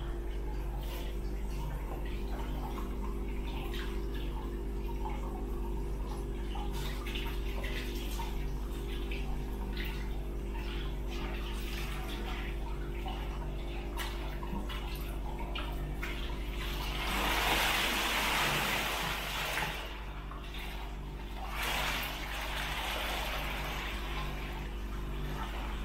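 Hot spring water pouring from a spout into a ceramic tub, with small trickling ticks. A louder surge of water sloshing and spilling over the rim comes about two-thirds of the way in as a person sits down in the bath, followed by a smaller slosh.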